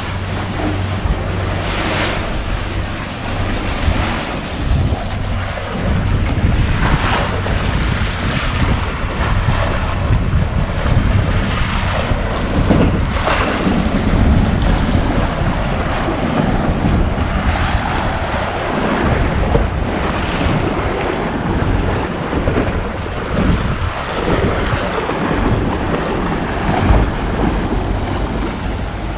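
Wind buffeting the microphone with a low rumble, over waves washing in and out along the shore in swells every few seconds.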